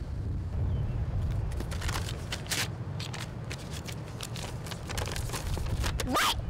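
Wind rumbling on the microphone, with a sheet of paper rustling and crackling in the hands from about a second and a half in.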